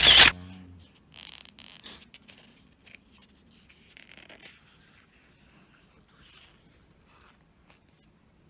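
Paper and packaging being handled: a sharp, loud burst right at the start, then faint scattered rustles, scrapes and small clicks.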